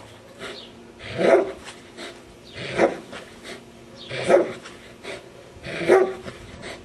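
A protection-training dog barking four times, evenly about a second and a half apart.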